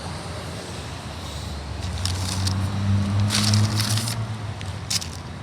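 Paper and cardboard fast-food packaging rustling and crinkling in short bursts as a takeaway order is unpacked, over a steady low hum.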